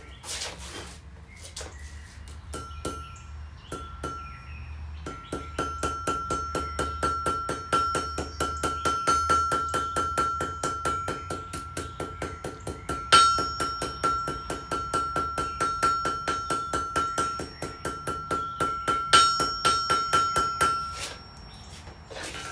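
Blacksmith's hammer striking iron on an anvil, with a few separate blows and then a fast, steady run of several blows a second. The anvil rings with a clear, sustained high tone, and two harder blows stand out about midway and near the end.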